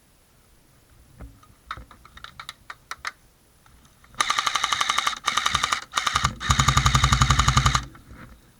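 Airsoft gun firing on full auto in three rapid bursts, the last the longest, after a few scattered clicks.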